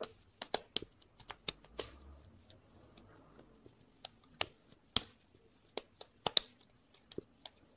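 Hands pressing and patting a ball of wet clay: scattered short, sharp clicks and taps at irregular intervals, the loudest about five seconds in.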